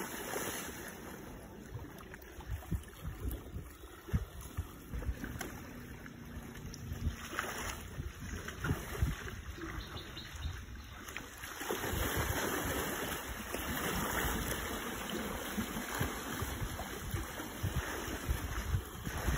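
Muddy water sloshing and splashing as Asian elephants wallow and roll in a pond, with wind buffeting the microphone; the sloshing grows louder about two-thirds of the way through.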